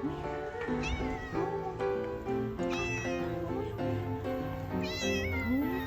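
Cat meowing three times, short high calls that fall in pitch, over background music.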